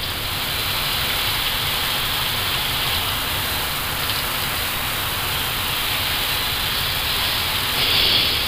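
Steady rushing airflow noise inside an Airbus A320 cockpit in descent: an even hiss over a low rumble, swelling slightly near the end.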